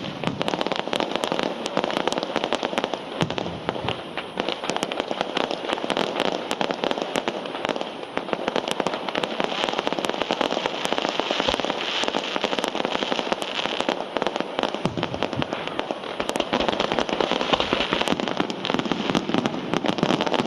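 Fireworks display: a continuous, dense crackle of rapid sharp pops and cracks, without a break.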